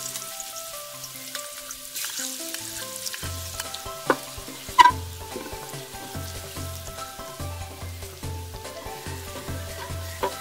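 Ginger-garlic paste sizzling as it fries in hot ghee, stirred with a wooden spatula in an aluminium pressure cooker. Two sharp knocks about four and five seconds in.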